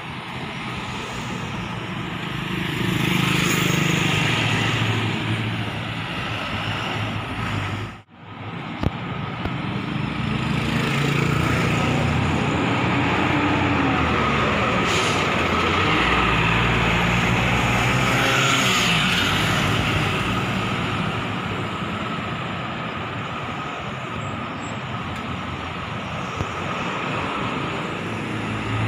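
Road traffic: cars driving past and a large coach bus's engine running as it pulls by, over steady road noise. The sound breaks off sharply about eight seconds in, then picks up again.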